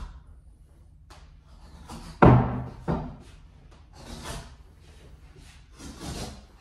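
Old cloth being torn off a wooden pool table rail in several short ripping pulls, with one loud wooden knock about two seconds in.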